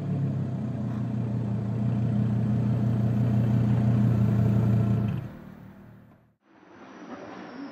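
Audi R8 GT's 5.2-litre V10 with a Larini exhaust idling steadily, then dying away about five seconds in to a moment of silence. A fainter car engine comes in near the end.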